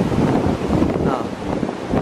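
Muddy floodwater rushing across a shallow wadi bed, with wind buffeting the microphone.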